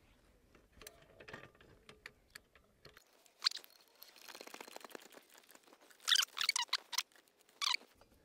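Hand-tool work on a jacked-up car: scattered small clicks and knocks, a fast run of fine ticks midway, then several loud metallic scrapes near the end as a spider wheel brace is worked on the wheel nuts.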